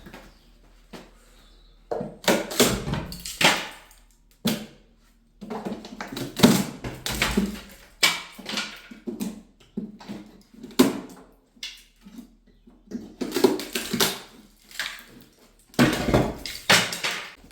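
Hand work on an old wooden door and its lintel: irregular scraping, knocking and rubbing of wood, in bursts that start about two seconds in.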